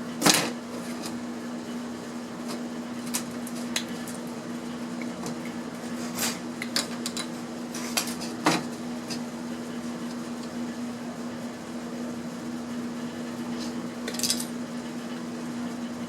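Scattered sharp clicks and metallic clinks, about eight in all, the loudest just after the start and about eight and a half seconds in, from wire being snipped and cut-off wire ends being tossed into a box. A steady low electrical hum runs underneath.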